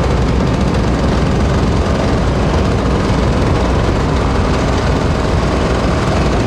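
Vintage motorcycles riding at low speed, their engines running steadily with a constant low rumble.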